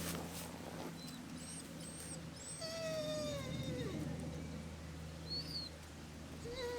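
Dog whining: one long whine that slides down in pitch, starting about two and a half seconds in, then a second shorter whine sliding down near the end.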